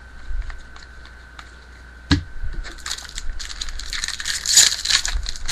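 Baseball trading cards being handled: a sharp knock about two seconds in as cards are set down, then a crackly rustle of cards sliding and rubbing against each other that grows louder toward the end.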